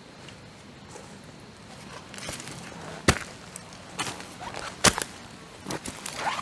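Footsteps crunching through dry leaf litter and twigs on a forest floor, starting about two seconds in, with irregular crackles and a few sharp snaps, the loudest about three and five seconds in.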